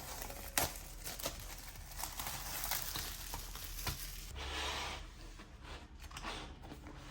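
Merchandise packaging being handled: crinkling and tearing of plastic or paper wrapping, with a few sharp clicks and a denser rustle about four seconds in.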